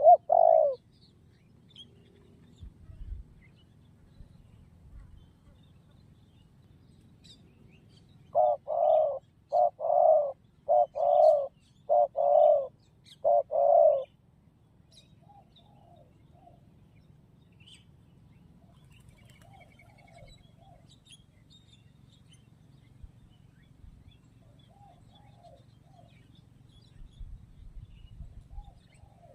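Spotted dove cooing: a short coo right at the start, then a loud phrase of about eight coos some eight seconds in, followed by a few much fainter coos later on.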